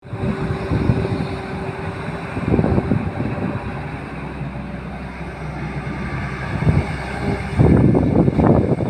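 Hydraulic excavator working: its diesel engine runs with a steady low rumble and irregular surges, growing louder about a second before the end.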